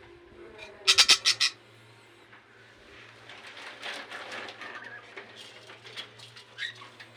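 Budgerigars chattering and chirping, with a brief loud burst of rapid calls about a second in, followed by softer continuous warbling chatter.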